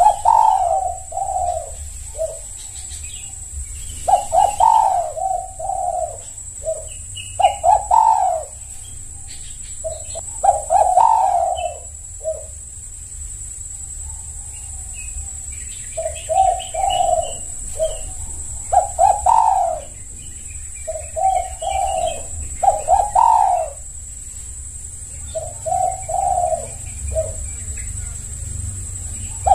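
Spotted dove (tekukur) cooing: phrases of three or four quick low coos, repeated every few seconds. A faint steady high-pitched whine and a low hum run underneath, with a few faint chirps.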